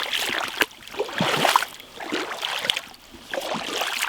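Footsteps in Wellington boots wading through shallow water with a sticky, muddy bottom: a sloshing splash with each step, about one a second.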